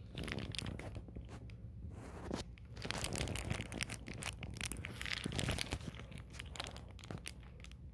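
Foil-faced bubble insulation sheet crinkling and crackling as it is pressed and shifted, a dense run of small crackles that is busiest in the middle.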